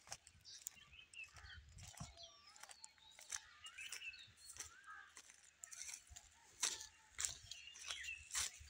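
Small birds chirping and calling over and over, with occasional crunching steps through dry cut wheat stalks.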